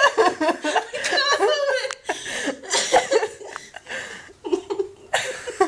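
A woman laughing hard in repeated bursts, with short breaks between them.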